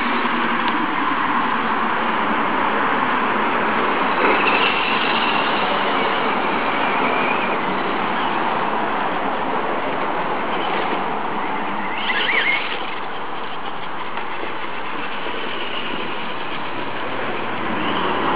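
Traxxas Stampede electric RC monster trucks driving, their motors and geartrains whining and rising and falling in pitch with the throttle, over a steady rushing noise. The whine is strongest about four seconds in and again about twelve seconds in.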